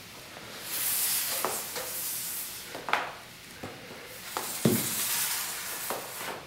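iPad 2 tablets being slid across a tabletop and pushed together into a grid: two stretches of hissing scraping, with a sharp clack about three seconds in and another a little before five seconds as tablets knock against each other or the table.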